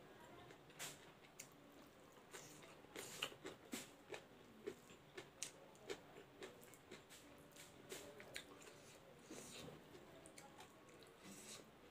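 Faint eating sounds: a person chewing with small, irregular wet clicks and smacks, while fingers squish and mix rice and food by hand.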